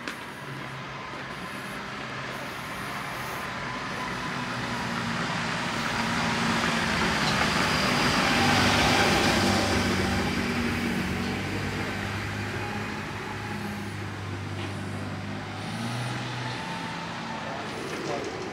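Engine of a small cab-over delivery truck running close by, a steady low engine note under a hiss that grows louder to a peak about halfway through and then fades.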